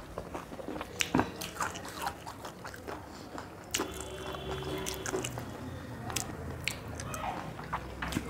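Close-up eating sounds: irregular chewing, lip smacks and wet mouth clicks as spicy chicken is eaten off the bone by hand.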